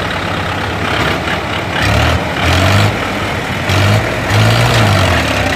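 Diesel tractor engines running close by, with the revs swelling and easing off several times.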